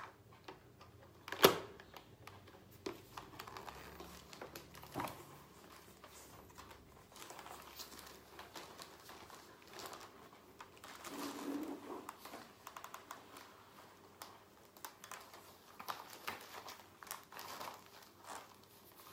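Rustling and scattered light plastic clicks of a motorcycle helmet being handled and put on, with one sharp knock about a second and a half in.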